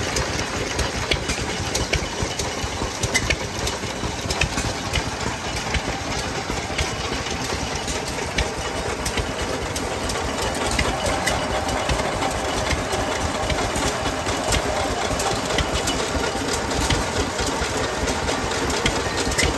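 Antique hit-and-miss engine running and belt-driving a Letz corn grinder, with scattered sharp clicks. From about halfway, the grinder grinds shelled corn and the noise grows a little louder.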